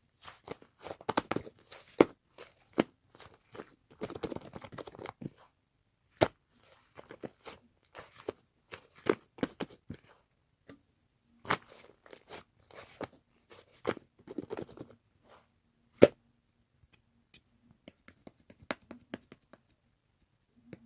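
Irregular handling noises: scattered sharp clicks and short crackling clusters, with one loud knock about sixteen seconds in, then only sparse faint clicks.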